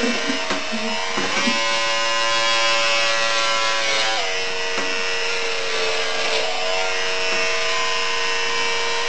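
Electric hair clippers running with a steady buzz, the pitch dipping slightly about four seconds in.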